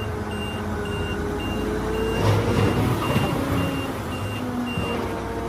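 Heavy vehicle's reversing alarm beeping steadily about twice a second, over the vehicle's engine running. The beeping stops shortly before the end.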